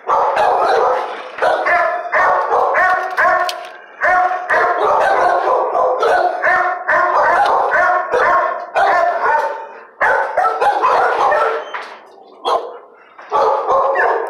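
Shelter dogs barking in kennels, a near-constant din of short barks at several pitches overlapping one another, easing off briefly about twelve seconds in.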